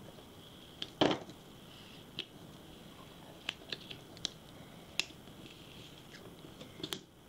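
A scattering of small sharp clicks and taps of fingernails and fingertips on paper as a sticker is picked at and pressed down on a planner page, the loudest about a second in.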